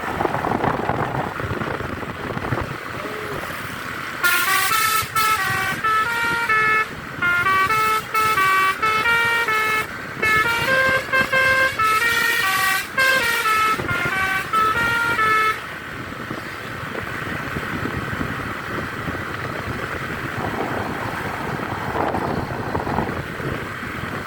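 Basuri telolet musical horn on a tour bus playing a tune of short stepped notes, starting about four seconds in and stopping about eleven seconds later, over steady vehicle and road noise.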